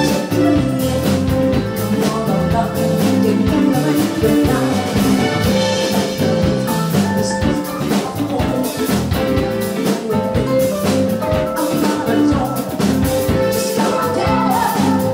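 Live band music: a drum kit keeps a steady beat under electric guitar.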